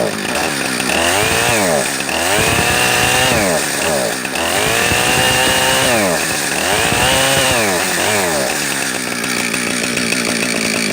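Gas chainsaw running and being revved up and down about four times, each rev a rising then falling whine, then settling to a steady idle for the last few seconds. The saw is low on fuel; the owner says she's running out of gas.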